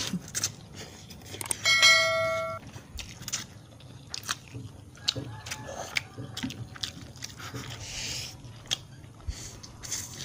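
Noodles being slurped and chewed from close up, with short wet smacks and clicks throughout. About two seconds in, a loud bell-like chime rings for about a second, the loudest sound here.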